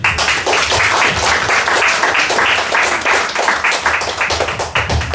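Audience applauding, the claps starting all at once and packed close together.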